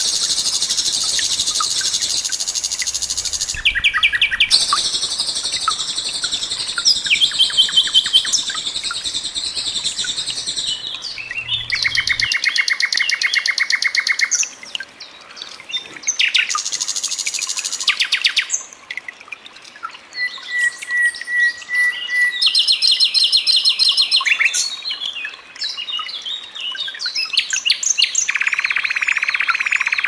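Common nightingale singing: a string of varied phrases of rapid repeated notes, fast trills and whistles, separated by short pauses.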